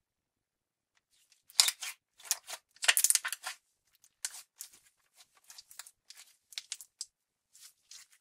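Translucent glitter slime being pressed flat and squeezed by hand, making wet clicking and crackling squelches. The sounds start about a second in, with the densest bursts about one and a half and three seconds in, then sparser clicks.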